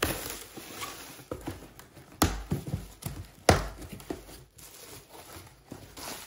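Cardboard toy box and its packaging being opened by hand: rustling and crinkling handling noise with sharp knocks at the start and about two and three and a half seconds in.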